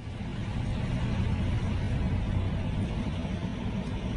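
Steady low rumble of a car driving: engine and road noise, with no distinct events.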